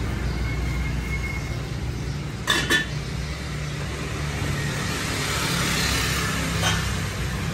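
Dishes clinking as bowls and utensils are handled: two sharp clinks close together about two and a half seconds in and a lighter one near the end, over a steady low hum of street traffic.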